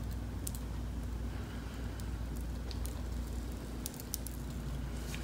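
A thread tap being turned slowly by hand in an aluminium engine case, cutting new threads for a Heli-Coil insert: scattered faint clicks and ticks over a steady low hum.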